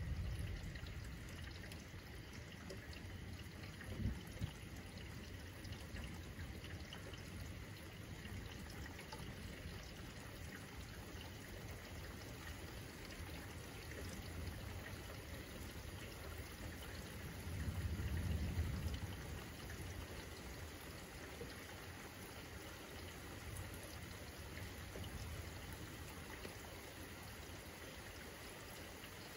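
Steady rain falling, with low thunder rumbling at the start and again, louder, for about two seconds some two-thirds of the way through. Two short low knocks come about four seconds in.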